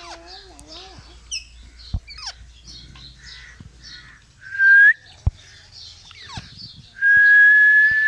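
Parakeets chirping and squawking over and over, with a loud whistled note about halfway through that rises at its end and a longer steady whistle near the end, the loudest sound here. A sharp knock is heard about midway.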